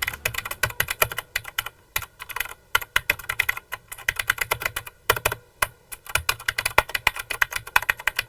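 Fast, wild typing on a mechanical keyboard with Cherry MX Blue switches: a dense run of keystrokes, each with the switch's audible click, broken by a few short pauses around two and five seconds in.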